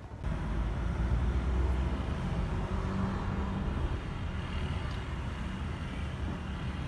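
A car driving, heard from inside the cabin: a steady, low road and engine rumble that comes up sharply at the start and then holds.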